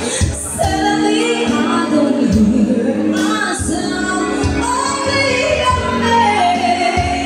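A woman singing a melody into a microphone, amplified, over backing music with a bass line.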